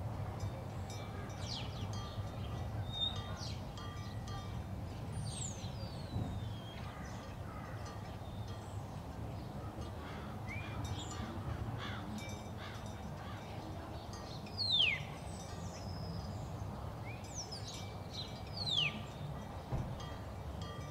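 Birds calling with short, scattered, descending whistled calls, two of them louder, about 15 and 19 seconds in, over a steady low rumble.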